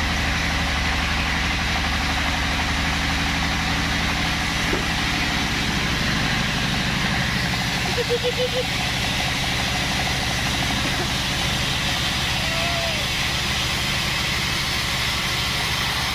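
Sawmill band saw machinery running steadily with a constant engine-like hum and a noisy whir. About halfway through comes a quick run of four short chirps.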